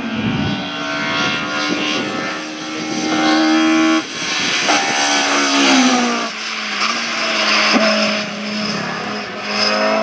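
Race car engine running hard on a hillclimb run, its pitch climbing and then dropping sharply at gear changes. It is loudest as the car passes close about five seconds in, with a single sharp crack near eight seconds.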